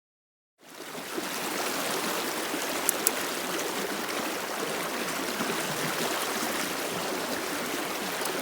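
River water rushing steadily, cutting in abruptly about half a second in, with two sharp clicks close together about three seconds in.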